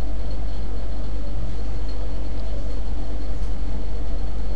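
Steady hum and hiss of the recording's background noise, unchanging throughout, with no distinct sound events.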